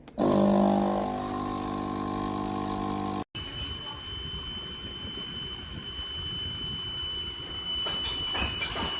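Capsule coffee machine starting up with a short beep, then its pump humming steadily as it brews. After a cut, a steady hiss with a thin, high, constant whine.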